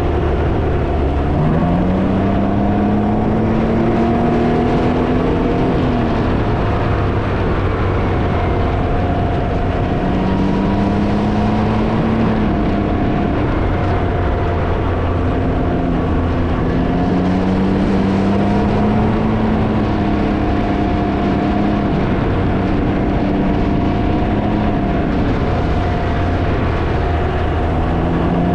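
Can-Am Ryker three-wheeler's engine running on the road under heavy wind noise on the microphone. The engine note climbs and drops back several times as the rider accelerates and eases off.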